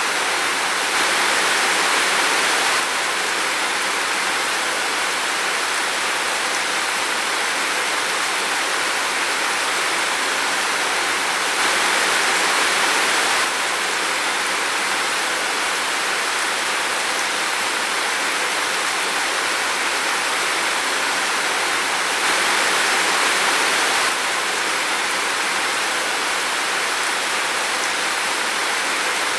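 Steady heavy rain falling in a forest, an even hiss that swells slightly louder three times, about ten seconds apart.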